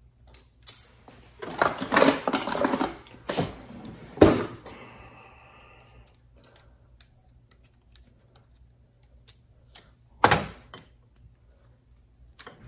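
Metal clicks and clatter from piston rings and ring expander pliers being handled while rings are fitted onto a Ford 289 piston, with a cluster of rattling handling about two seconds in, one sharp knock about four seconds in and another just after ten seconds.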